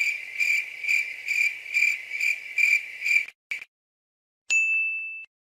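A high, steady trilling tone pulsing about twice a second, cut off suddenly after about three seconds. Near the end, a single short high beep follows.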